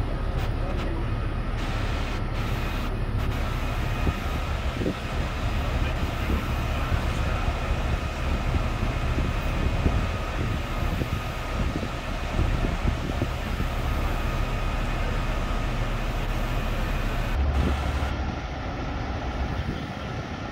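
Heavy diesel trucks idling: a steady low rumble with a faint steady whine above it, changing slightly near the end.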